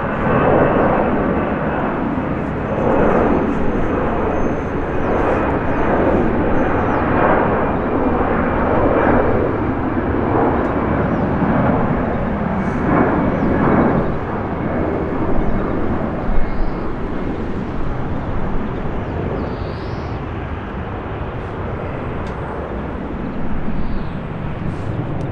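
Lufthansa Airbus A320-200's jet engines at takeoff power after takeoff, a steady rush of engine noise with a faint high whine sliding slightly lower. The noise grows gradually quieter in the second half as the aircraft climbs away.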